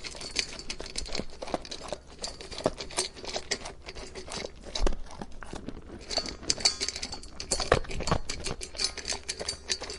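Dog eating, with dense, irregular crunching and clicking chews.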